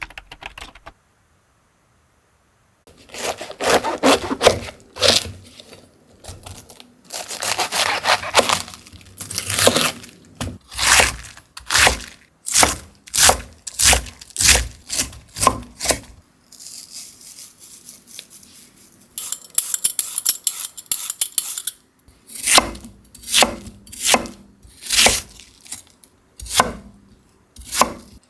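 Kitchen food preparation: a knife cutting crisp vegetables on a cutting board in repeated crunchy, rasping strokes. Long rasps come first, then a steady run of cuts, then a softer rasping stretch, and then evenly spaced cuts about one a second.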